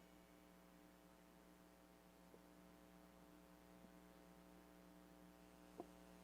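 Near silence: a low steady electrical hum, with one faint click near the end.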